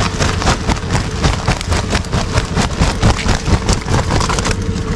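A sack is shaken to empty live yellow catfish out of it. The fish tumble and flap out, their spines catching in the sack, in a dense run of irregular slaps and scrapes over a steady low hum.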